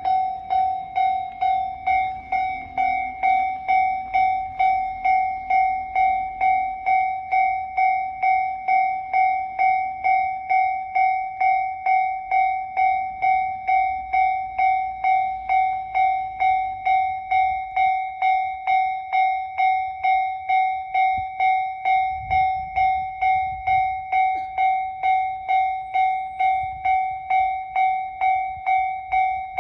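Japanese railway level-crossing warning bell ringing steadily: one ringing tone struck about twice a second, each strike fading before the next, the signal that a train is approaching. A low rumble comes up briefly about 22 seconds in.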